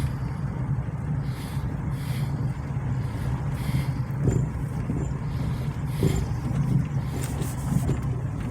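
Car cabin noise while driving on a rough, potholed street: a steady low hum of engine and tyres, with a few short knocks as the car jolts over the holes.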